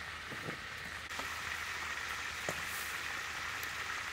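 Water boiling in a wok with blocks of instant noodles in it: a steady bubbling hiss that grows slightly louder about a second in, with a few light clicks.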